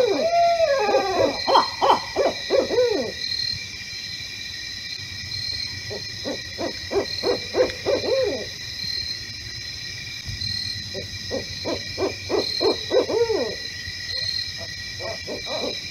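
Barred owl calling: three bouts of fast hoots that rise and fall in pitch, a few seconds apart.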